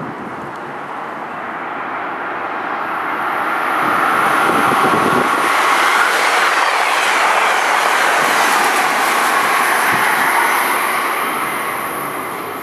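Amtrak Keystone push-pull train passing at speed, cab car leading and an AEM-7 electric locomotive pushing at the rear: steady wheel-on-rail noise that builds as it approaches, stays loud through the middle and eases off near the end.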